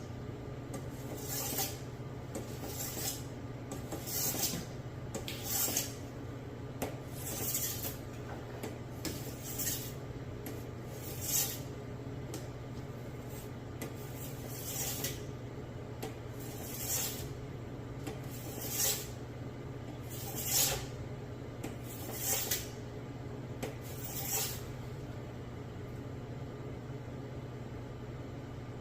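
Sharpening stone stroked along the edge of a Bone Tactical Supersteal machete blade: about twenty short, hissing scrapes, roughly one every second or so, stopping a few seconds before the end.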